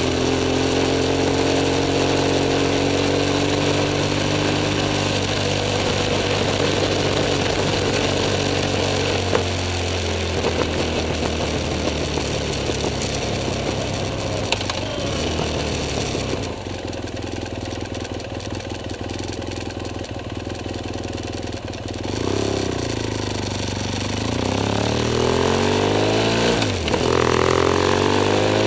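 BMW F 800 S parallel-twin engine pulling under throttle, its pitch rising steadily over the first several seconds. Through the middle it goes quieter and steadier. Near the end it rises again, with a short dip like a gear change.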